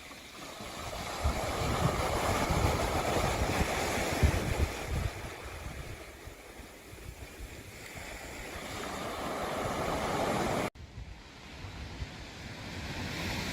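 Rushing noise with no clear pitch, rising and falling in slow swells. It cuts off abruptly about eleven seconds in, then begins to swell again.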